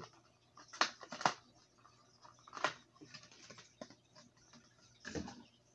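Clear plastic fishing-lure package being pulled open by hand, crinkling and clicking in a few sharp snaps about a second in and near three seconds, with a duller knock near the end.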